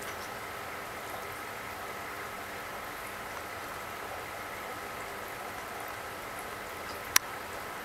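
Steady hiss of background noise with faint steady tones, broken once by a single sharp click near the end.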